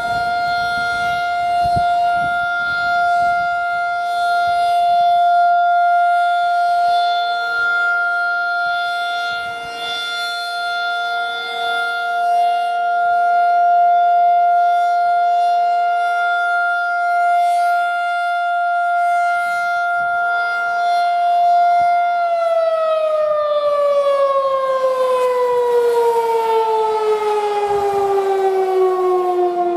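Federal Signal 2001-SRN 12-port electromechanical tornado siren sounding its steady alert tone. About 22 seconds in, the tone starts falling steadily as the siren winds down at the end of the alert test.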